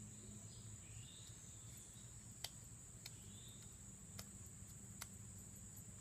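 Near silence outdoors: a faint, steady, high-pitched insect trill runs throughout, with a few soft clicks scattered through the middle.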